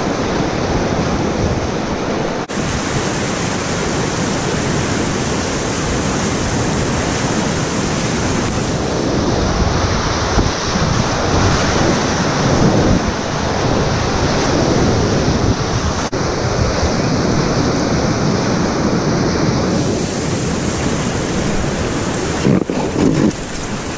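Whitewater rapids rushing and splashing right around a packraft, a steady loud roar of water that swells in the bigger waves around the middle. A few sharp knocks come near the end.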